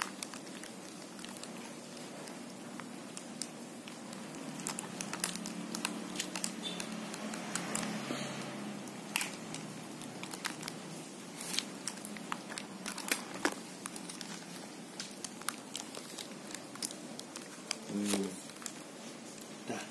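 Clear plastic packing tape and cardboard crinkling and rustling under the hands, with many scattered small clicks and taps.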